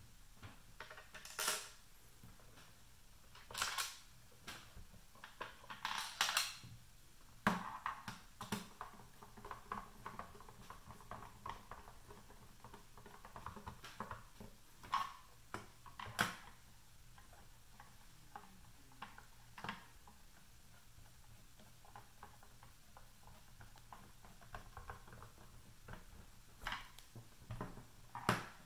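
Small screws picked up and driven by hand with a screwdriver into the plastic case of a pulse oximeter: irregular light metal-on-plastic clicks and taps with faint handling rustle, busier in the first half.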